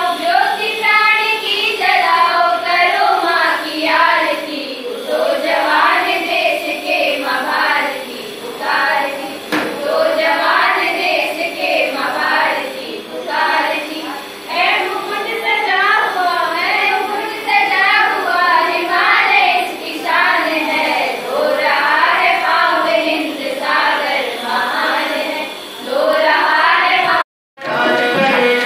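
A group of young students, boys and girls, singing a Hindi patriotic song together into a microphone. The singing cuts off abruptly near the end.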